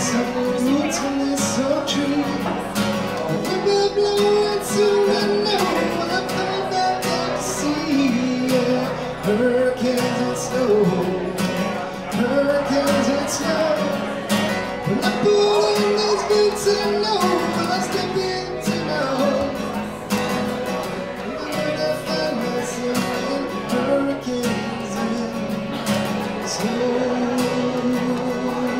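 Acoustic guitar strummed in a steady rhythm while a man sings a song into a microphone.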